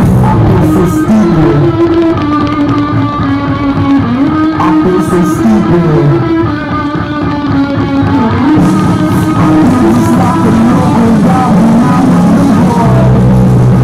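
Music led by guitar, its melody moving up and down over a steady accompaniment.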